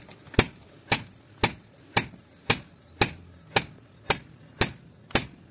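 Hammer blows on a red-hot leaf-spring steel cleaver blank resting on an anvil, in an even rhythm of about two strikes a second. Each strike gives a sharp metallic clang with a high ring.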